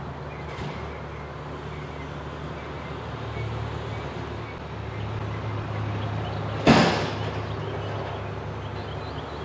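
Front-load garbage truck's diesel engine running and revving up as the hydraulic forks lift a steel dumpster over the cab. About seven seconds in there is one loud metallic bang with a short ring as the dumpster tips at the top of the lift.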